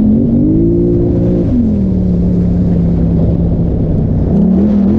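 Polaris Sportsman XP 1000 ATV's twin-cylinder engine under way off-road. It revs up in the first second or so, drops back to a steady lower pitch for a few seconds, then revs up again near the end.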